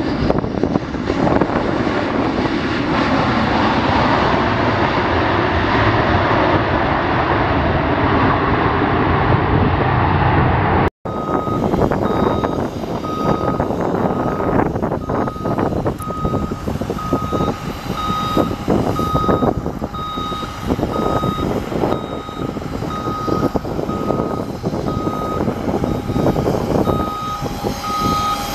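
An Airbus A320-family airliner rolling out on the runway just after touchdown, its jet engines making a loud, even rush. About eleven seconds in it cuts abruptly to ramp noise, where a service truck's reversing beeper sounds steadily about once a second over vehicle rumble, and a faint steady whine joins partway through.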